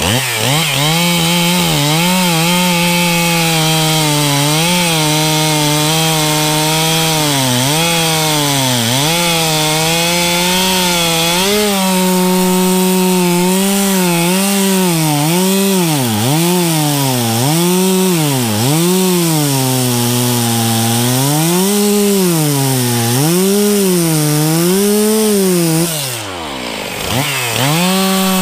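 Two-stroke chainsaw cutting up felled pine trees, the engine revving up and down again and again as it cuts. Near the end it drops briefly toward idle, then revs back up.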